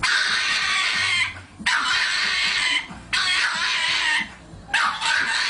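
Pug letting out long, raspy squealing cries, four in a row of about a second each with short pauses between.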